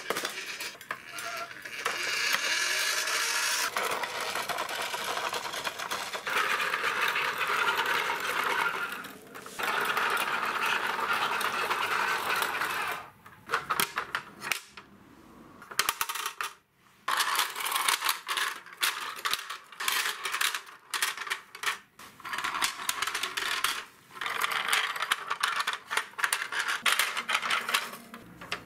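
Plastic toy vehicles being handled on a concrete floor. Stretches of steady scraping and rattling come first, then a run of quick plastic clicks and knocks in the second half.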